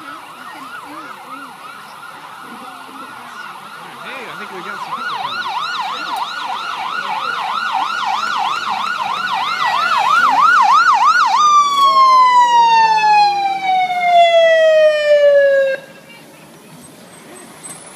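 Fire engine siren in a fast yelp, about three sweeps a second, growing steadily louder. About eleven seconds in it switches to one long falling tone that cuts off suddenly.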